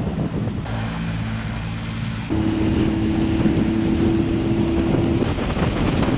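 Outboard motor, a 40 hp, running at speed as the boat moves, with wind buffeting the microphone and water rushing past the hull. The engine's steady tone changes suddenly a little over two seconds in.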